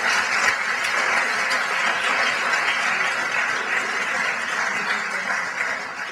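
Audience applauding, a dense steady clatter of clapping that fades near the end.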